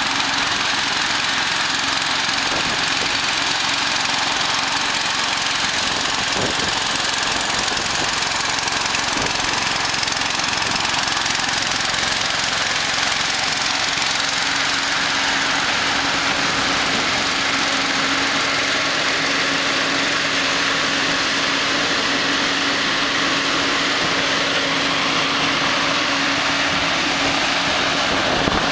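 Air-blast mist sprayer towed by a quad bike, running: a loud, steady rush of air from its large axial fan over the steady hum of an engine.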